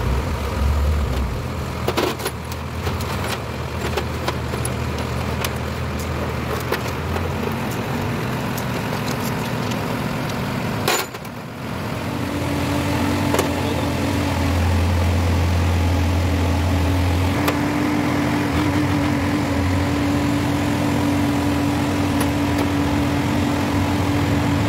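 Steady hum of an engine running, fuller and louder from about halfway through, with scattered clinks of bolts and bearing rollers being scrubbed in a tray of cleaning fluid.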